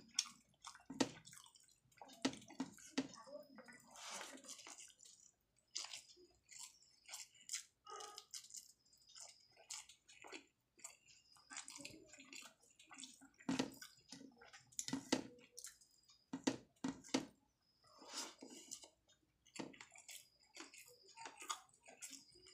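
Close-up wet chewing and lip-smacking of a person eating steamed rice by hand, with many short, irregular mouth clicks.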